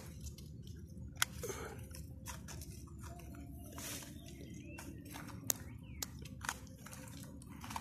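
Fingers digging in potting soil inside a thin plastic nursery bag, close to the microphone: faint crunching and rustling with a few scattered sharp clicks.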